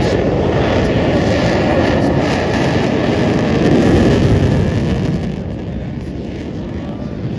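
A Lockheed F-35B's single Pratt & Whitney F135 jet engine at takeoff power as the jet rolls down the runway and lifts off. The jet noise swells to its loudest about four seconds in, then falls away as the aircraft climbs out.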